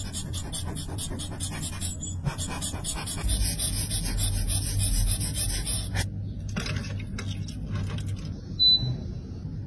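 Close, gritty rubbing and scraping, irregular and scratchy, with a low hum in the middle. A short high beep sounds near the end.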